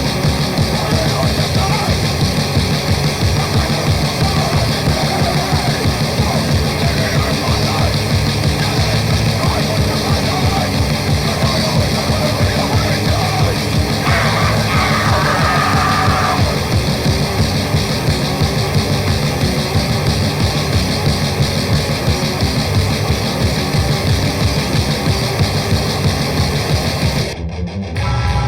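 Raw, noisy grindcore: distorted guitars, bass and drums in a dense, unbroken wall of sound that cuts off abruptly about a second before the end.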